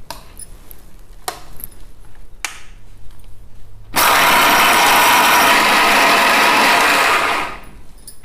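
Electric mixer grinder switched on, running for about three and a half seconds to grind red chillies and garlic into a chutney, then stopping abruptly. Before it starts, a few light clicks as the steel jar is set on and seated.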